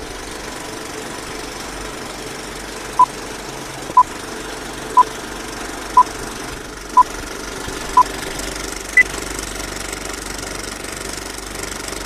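Film-countdown-leader sound effect: an old film projector running with a steady clatter, while short beeps sound once a second, six at one pitch and then a single higher beep.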